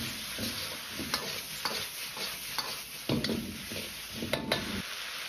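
Metal wok ladle scraping and turning a potato, onion and pepper stir-fry in a hot wok, with a steady sizzle under the irregular scrapes and a few knocks. This is a quick stir-fry over raised heat to melt in the seasonings.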